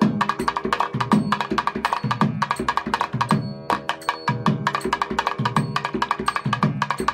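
Percussion-led devotional music: drum strokes and a quick, even clicking beat over steadily held pitched notes.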